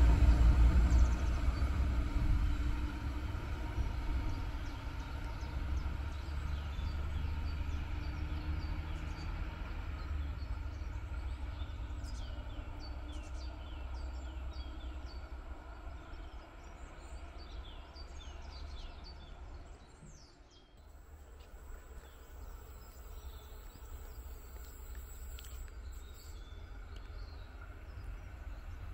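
DB Class 642 (Siemens Desiro) diesel railcar running away down the line, its engine and wheel rumble fading steadily over about twenty seconds. Birds chirp throughout. After a sudden break about twenty seconds in, there is only faint, quiet outdoor background with a few more bird calls.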